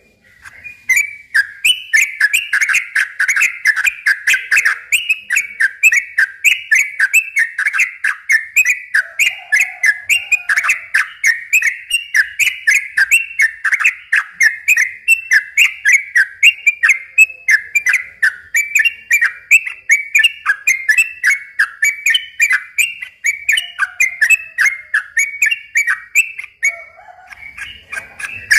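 Sooty-headed bulbul (trucukan) singing a long, rapid run of short chirping notes, several a second, with hardly a break.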